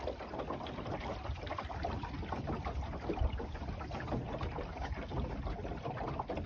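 Water lapping and trickling along the hull of a small wooden sailing dinghy under way, in many small irregular splashes, over a low wind rumble on the microphone.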